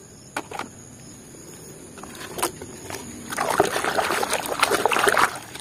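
Muddy water sloshing and splashing in a plastic basin as a hand scrubs a plastic toy crocodile in it, starting about three seconds in after a few light knocks.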